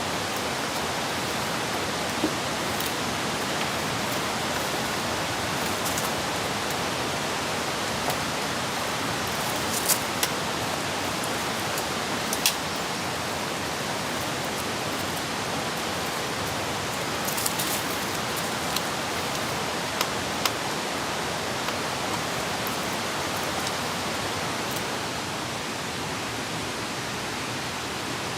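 Steady rain, an even hiss with scattered sharp ticks of single drops striking close by.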